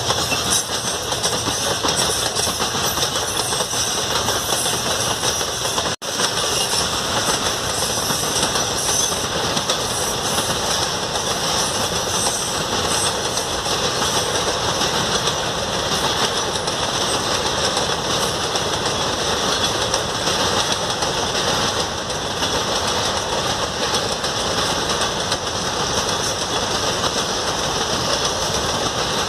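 Freight train of covered hopper wagons rolling past on metre-gauge track: the steady, loud running noise of steel wheels on the rails, with the sound cutting out for an instant about six seconds in.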